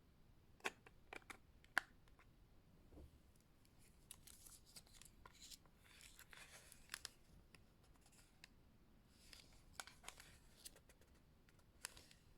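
Fingers handling the plastic case of a Western Digital My Passport external hard drive close to the microphone. A few sharp taps or clicks come in the first two seconds, then soft scratchy rubbing twice, with scattered clicks.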